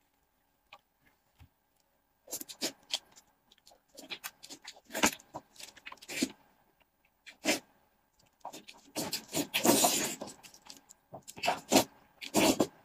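Close-up eating sounds from a stewed sheep's head: gloved hands pulling the meat apart, and mouth sucking, smacking and chewing on it. After about two seconds of quiet, irregular wet smacks and slurps come, with a longer slurp a little after the middle.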